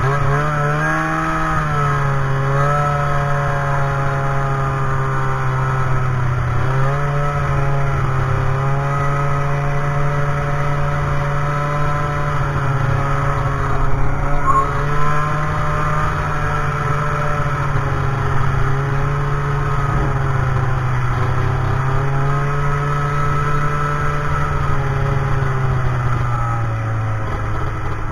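Snowmobile engine running under way at a fairly steady speed, its pitch dipping and recovering a few times as the throttle eases off and opens again.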